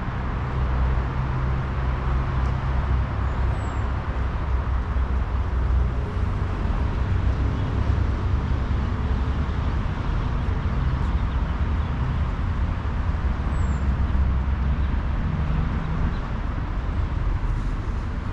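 Steady rumble of distant road traffic, with two faint, brief high bird chirps.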